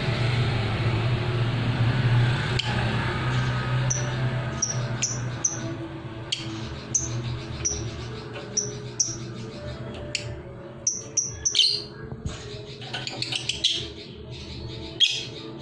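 Lovebird practising its ngekek song: short high chirps repeated about one to two a second, turning into a busier, louder chatter near the end.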